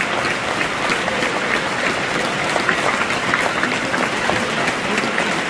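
Football stadium crowd applauding steadily for a minute's applause, many hands clapping at once with sharp individual claps close by.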